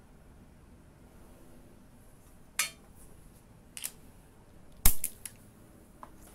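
Handling noise from an air die grinder that is not running: a short scrape, then a few sharp metallic clicks and clacks, the loudest about five seconds in.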